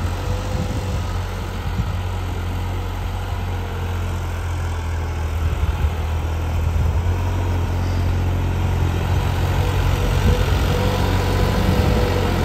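New Holland 3630 tractor's three-cylinder diesel engine running steadily under load as it pulls a tillage implement through the soil, growing louder as the tractor comes closer.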